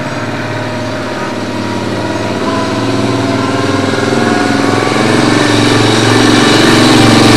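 A motor vehicle's engine running steadily, growing gradually louder.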